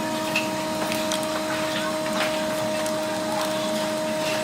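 A small electric motor running steadily with a constant whine and hiss, with a few light ticks over it.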